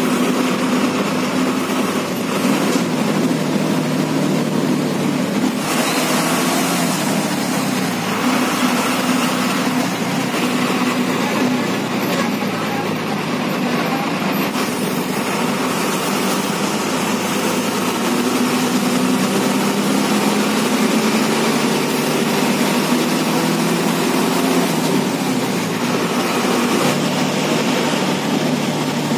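Bus engine running while the bus drives in traffic, heard from the driver's cab with road noise, the engine note rising and falling as it speeds up and slows.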